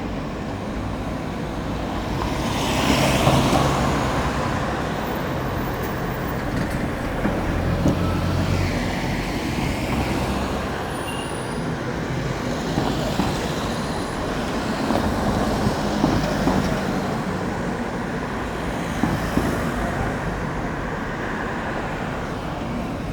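City street traffic: steady road noise with engines rumbling as vehicles pass, one passing loudest about three seconds in.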